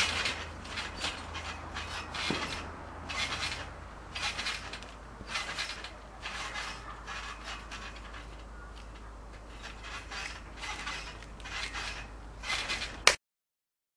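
Trampoline springs and mat creaking and rasping with each bounce, about one bounce a second. Near the end a sharp loud click, then the sound cuts off suddenly.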